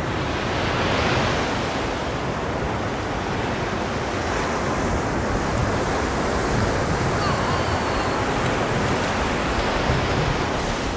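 Surf on a sandy beach: small waves breaking and washing up the shore in a steady rush.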